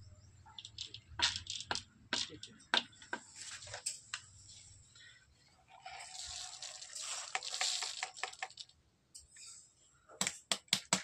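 Crinkling of a plastic sheet and scattered clicks, then a steady hiss of small pellets (black-powder-coated firework stars) rattling over a wire-mesh sieve for about three seconds around the middle, and a few sharp clicks near the end.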